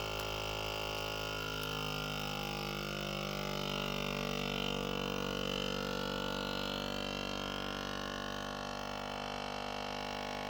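Countertop vacuum sealer's pump motor running steadily with a hum and whine, drawing the air out of a bag.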